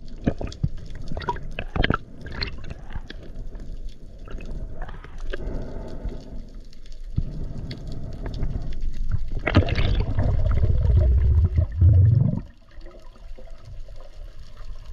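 Underwater sound from a spearfishing diver's camera: water sloshing and bubbling with scattered clicks. A louder rush of water and bubbles runs from about nine and a half to twelve and a half seconds in.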